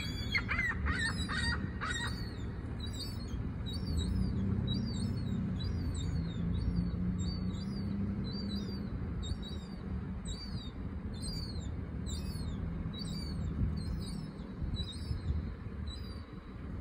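Juvenile gull begging with a high, short call repeated about once or twice a second, with a cluster of harsher, lower gull calls in the first two seconds. A steady low rumble runs beneath.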